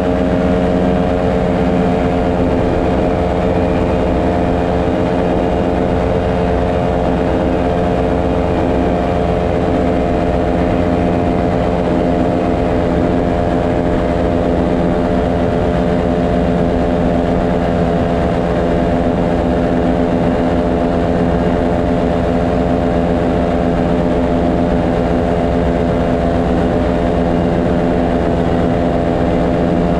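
Paramotor engine and propeller running steadily in flight, loud and even at a constant pitch.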